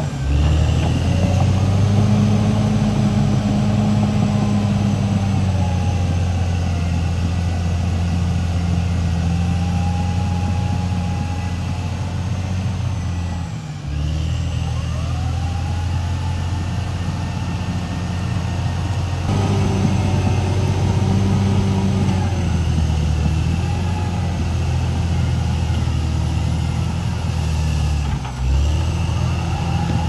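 Caterpillar D6R XL crawler bulldozer's diesel engine running steadily as the dozer works through loose soil, its note shifting in pitch and dipping briefly twice, once near the middle and once near the end.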